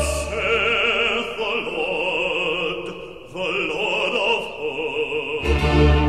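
Operatic singing with wide vibrato over a sustained musical accompaniment. The deep bass drops away for most of the stretch and comes back about five and a half seconds in.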